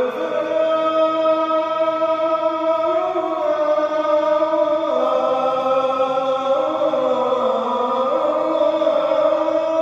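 A solo voice chanting in long held notes that slowly rise and fall in pitch, stepping down about five seconds in.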